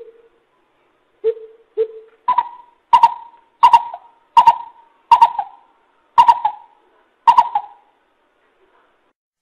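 Coucal (bubut) hooting: two deep hoots, then a run of seven higher hollow hoots spaced about two-thirds of a second apart, each trailing off with an echo.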